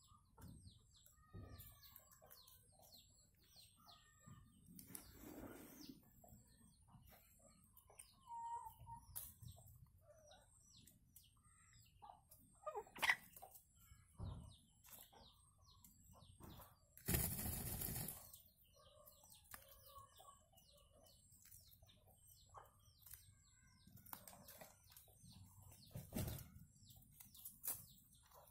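Faint scattered bird chirps and calls, with a short, louder burst of rustling noise a little past the middle.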